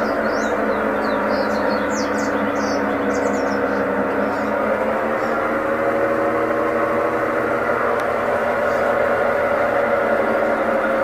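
Brastemp washing machine running with a steady, multi-toned hum: the unusual noise it is making. Short high chirps sound over it in the first few seconds.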